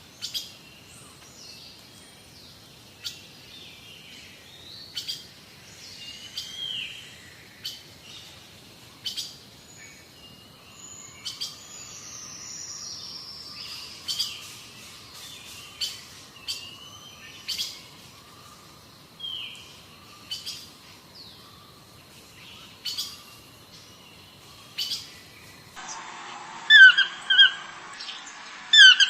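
Birds chirping: many short, high calls and quick glides. Near the end the sound switches abruptly to another recording with louder repeated high chirps.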